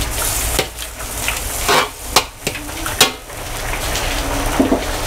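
A metal ladle stirring a wok of simmering lomi broth over a gas burner: a steady sizzling hiss, with several sharp clanks of the ladle against the wok.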